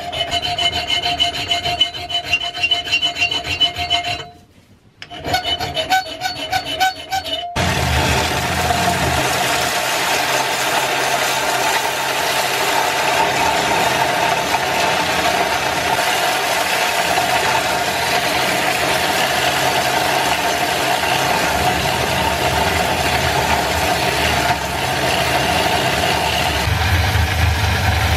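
A hand file rasping in quick strokes across the edge of a steel cleaver blade clamped in a vise, with a brief pause. About seven seconds in, it gives way to an electric belt sander running steadily, which turns deeper near the end as the blade is pressed against the belt.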